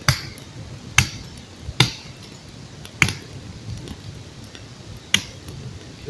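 Machete chopping a dead branch: five sharp blows at uneven intervals, the first four about a second apart and the last after a longer pause.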